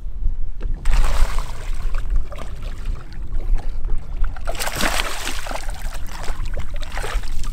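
Water sloshing against a bass boat's hull, with a hooked bass splashing at the surface beside the boat about halfway through, the loudest stretch.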